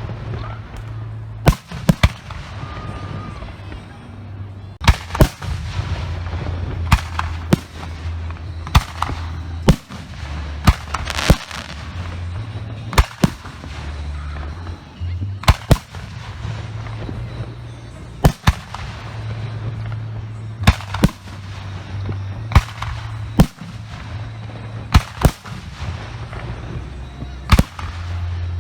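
Professional aerial firework shells going off one after another: sharp bangs every second or two, many in close pairs, over a steady low rumble.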